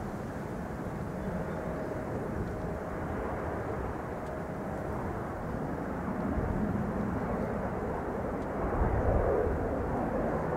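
Distant jet noise of a Boeing 747-400's four General Electric CF6-80C2 turbofans as the airliner climbs away after takeoff: a steady rumble with a faint hum in the first half, growing a little louder near the end.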